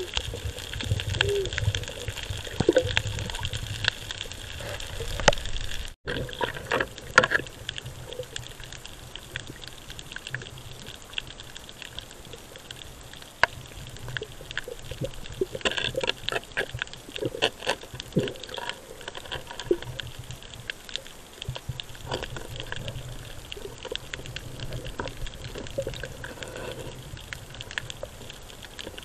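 Underwater sound picked up by a camera in a waterproof housing during a night dive: a steady muffled water noise with many scattered clicks and crackles, and a brief dropout about six seconds in.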